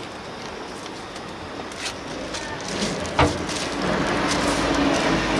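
Outdoor street background noise that grows louder a little after halfway, with a single sharp knock about three seconds in and a few fainter clicks.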